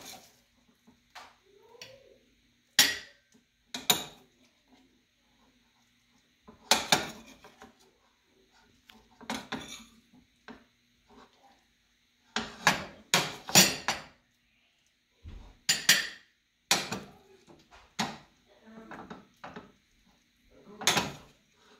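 A metal spoon clinks and scrapes against a frying pan and ceramic plates as scrambled eggs are scooped out and served. The sharp clatters come at irregular intervals, thickest in a quick run past the middle.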